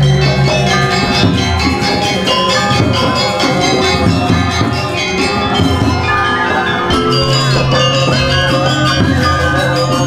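Balinese gamelan playing: bronze metallophones ring dense, fast-moving notes, over a deep steady low tone that sounds at the start and returns about seven seconds in.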